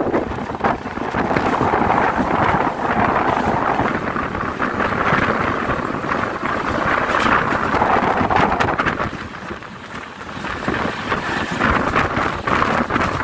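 Wind buffeting the microphone and the running noise of a moving passenger train's coaches, heard from an open coach door. The noise dips briefly about ten seconds in.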